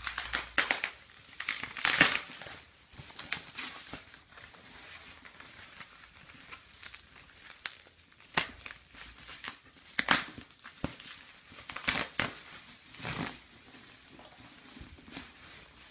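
Clear plastic packaging crinkling and tearing in irregular bursts as it is pulled off a new motorcycle helmet, loudest about two seconds in and again around ten seconds in.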